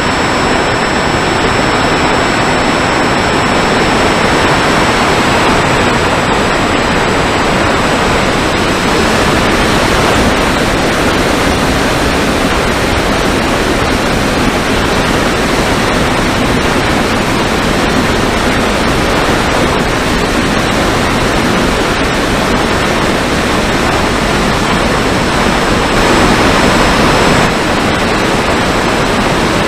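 Steady rush of wind and propeller noise on the microphone of a camera carried on a Mini Talon RC plane in flight, with the faint high whine of its electric pusher motor fading in and out.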